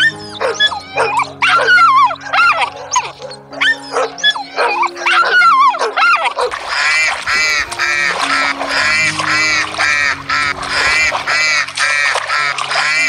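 Dogs barking and yelping over background music with held notes. From about six seconds in, the barks come in a quick, regular run of about two a second.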